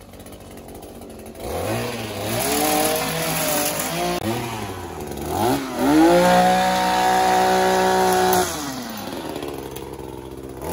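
Gas string trimmer's two-stroke engine idling, then revved up and down, held at high revs for a couple of seconds just past the middle and dropping back to idle near the end.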